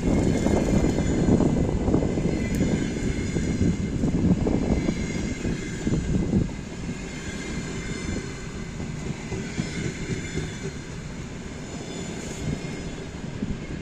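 Double-decker passenger coaches rolling past on the rails, a steady low rumble of wheels on track. It drops off sharply about six and a half seconds in, then carries on quieter as the train draws away.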